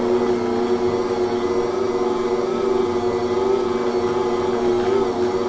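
Electric stand mixer running with a steady motor hum, mixing mashed baked potato and powdered sugar into a stiff candy dough.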